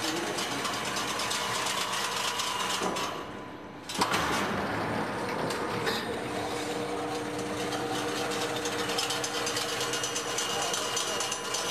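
Automatic chain link fence weaving machine running, its weaving head clattering with dense, rapid metallic clicking. The clatter drops briefly about three seconds in and comes back with a sharp click. A steady hum joins from about halfway through.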